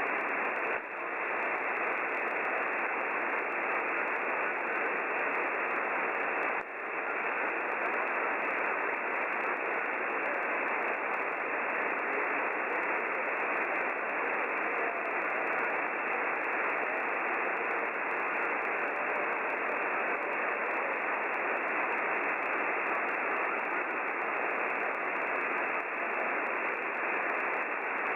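Steady hiss of shortwave band noise from a WebSDR receiver tuned to 7150 kHz in the 40 m band, with no readable station in it. It dips briefly twice, about a second in and again near six and a half seconds.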